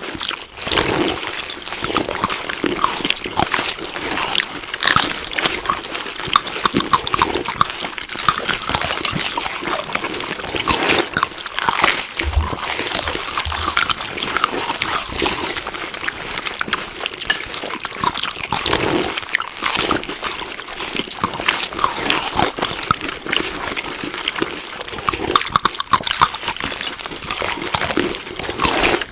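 Close-up chewing of food: continuous wet mouth noises with many small crackles and smacks.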